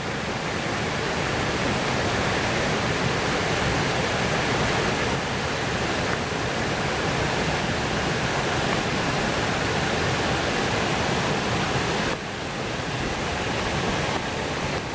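Shiraito Falls, a wide curtain of many thin streams spilling over a low rock arch, making a steady, even rush of falling water. The level dips briefly about twelve seconds in.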